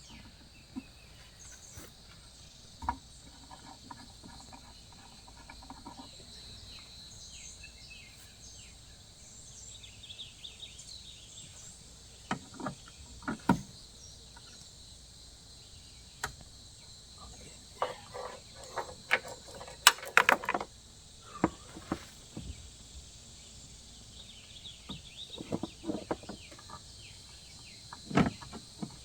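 Steady drone of insects in the background, with scattered metal clicks and knocks in the second half. The knocks come from fitting an AC service-kit gauge hose coupler onto the car's high-side service port. The loudest clatter is near the middle and a sharp knock near the end.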